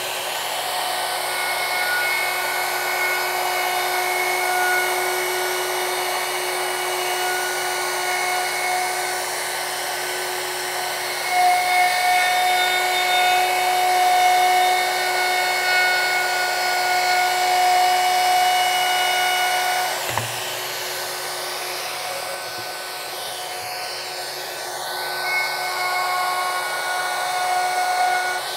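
Festool router running steadily at high speed, whining at a constant pitch, as it cuts a juice groove into an oak cutting board with no dust extractor attached. Its level rises and falls a little as the cut goes on, with a brief dip about twenty seconds in.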